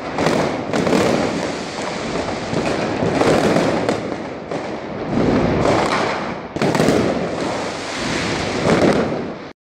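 Fireworks and firecrackers going off all around: a constant crackle and hiss broken by many sharp bangs, with the loudest cracks about a second in, near seven seconds and near nine seconds. The sound cuts off suddenly just before the end.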